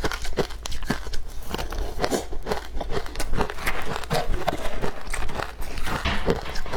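Close-miked chewing of soft, powdery freezer frost: a fast run of crisp, crackling crunches, several a second.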